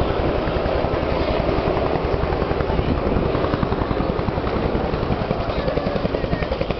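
Military helicopter flying overhead: a steady, rapid pulsing beat of the main rotor over the rushing noise of its turbine engines.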